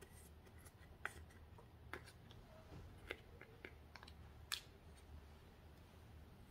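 Faint scrapes and light clicks of a plastic makeup applicator wand against the pans of a plastic makeup palette, about five short ticks spread a second or so apart.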